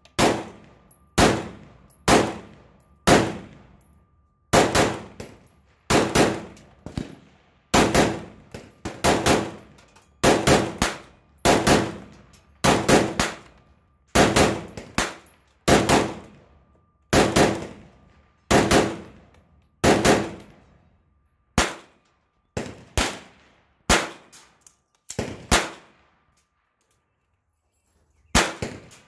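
AR-style rifle fitted with a Hiperfire muzzle brake firing a long string of quick single shots, about one to two a second, each report ringing off briefly. The shooting pauses near the end, then two last shots come close together.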